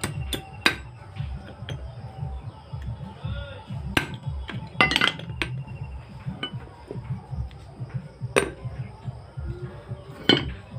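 Hammer striking the steel yoke and universal joint cross of a truck propeller shaft, about half a dozen sharp metallic knocks at irregular intervals, some ringing briefly.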